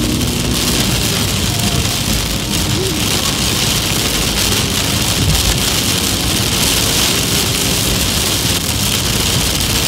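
Heavy rain pelting a car's windscreen and roof, heard from inside the car while it drives, with wet-road tyre noise underneath. The sound is loud and steady.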